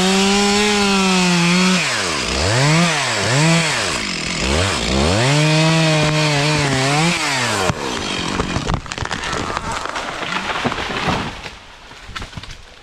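Two-stroke chainsaw running at high revs while cutting, its pitch dipping and climbing back a few times as the throttle is eased and reopened. It stops abruptly about two-thirds of the way through, followed by a few seconds of cracking and crashing that fade out, as a felled tree goes down.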